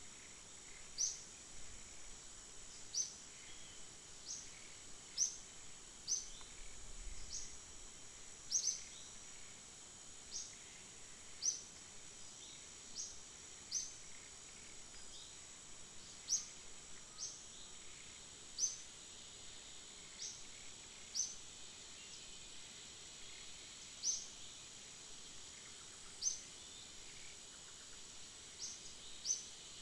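Quiet rural ambience: a steady high insect buzz, with a short, sharp, high chirp repeated about once every second or so.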